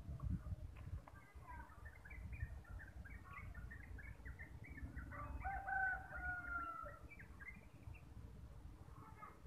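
A rooster crowing faintly, one drawn-out, slightly falling crow about five seconds in, among a run of short high chirps, over a low rumble.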